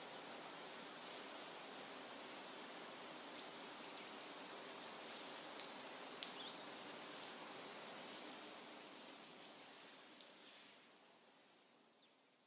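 Faint background ambience: a steady hiss with birds chirping now and then in the distance, fading out to silence about ten seconds in.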